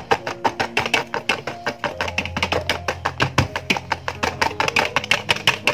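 Wire whisk beating egg, sugar and sunflower oil batter in a plastic bowl: fast, rhythmic clicking of the wires against the bowl, several strokes a second. Background music plays under it.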